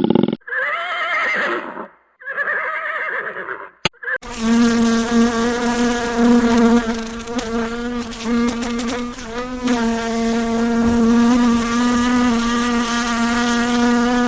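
Two short animal calls with wavering pitch, then a flying insect's steady, unbroken buzz held for about eleven seconds.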